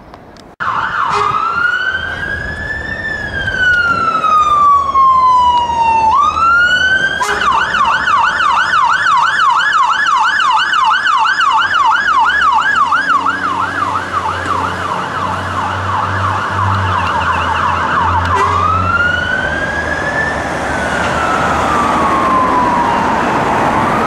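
Electronic siren on a Scania 94D fire engine responding to a call. It starts under a second in with a slow rising-and-falling wail, switches to a fast yelp for about eleven seconds, then goes back to the slow wail near the end. The diesel engine's low rumble comes through while it pulls past.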